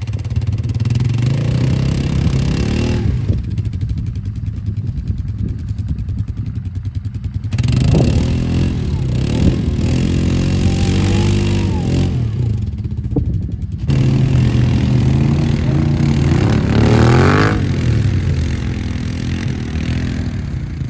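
ATV engine running hard and revving, its pitch rising and falling repeatedly as the quad pushes through a deep mud rut, with a sharp rev-up near the end.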